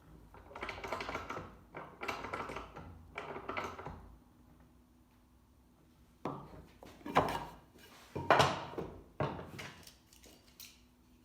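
A sanding block rubbing along a wooden edge in three strokes of about a second each, then, after a short pause, several sharper knocks and scrapes as the wood and block are handled.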